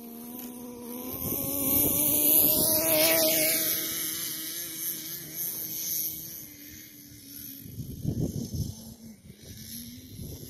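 Two-stroke nitro glow engine of a Kyosho USA-1 RC monster truck buzzing at high revs as the truck passes close by. The pitch climbs, then drops sharply as it goes past about three seconds in, and the engine runs on fainter and steadier as the truck drives away.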